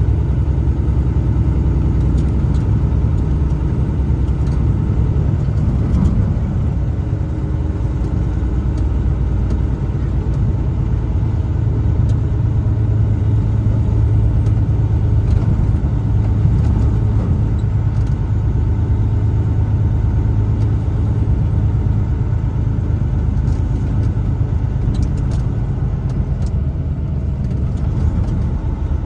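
Truck on the move: a steady low rumble of engine and road noise heard from inside the cab, with a few faint ticks.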